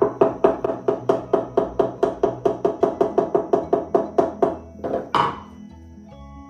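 Rapid taps of a soft-faced mallet on a hardwood board, about six blows a second, seating it in a tapered sliding dovetail slot. The tapping stops about four and a half seconds in, and one harder blow follows.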